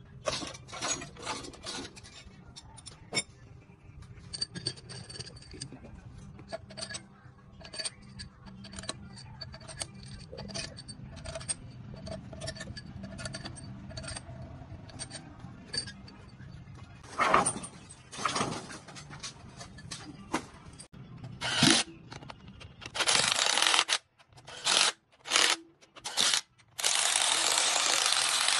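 Metal clinks, taps and tool clatter from hands-on engine repair work over a low steady hum, with a few louder knocks about two-thirds of the way in. Near the end, several loud bursts of hissing noise start and stop abruptly.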